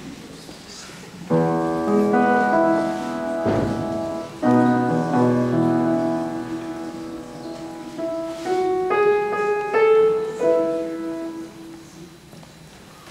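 Grand piano playing: two full chords struck about three seconds apart and left to ring, then a short phrase of notes climbing higher, dying away near the end.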